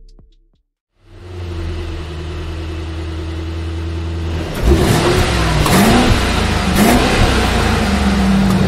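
Car engine idling steadily, then revved four or five times from about halfway in, its pitch rising and falling with each blip.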